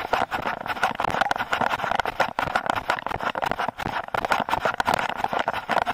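A runner's footfalls on a concrete road picked up by a body-worn camera, with rustling and wind noise: a dense, irregular patter of clicks and knocks over a steady hiss.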